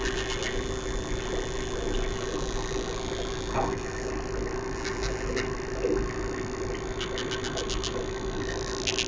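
Danionella cerebrum, a tiny fish, making its drumming sound: short, rapid trains of sharp clicks, like a ratchet, repeated several times over a steady hum and hiss.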